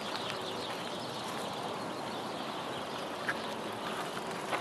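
Birds giving a few short, sharp calls over a steady outdoor hiss.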